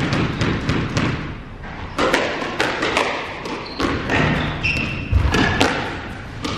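Squash rally: a string of sharp knocks as rackets strike the ball and the ball smacks the walls and floor, echoing around the enclosed court, with a few short sneaker squeaks on the wooden floor about four to five seconds in.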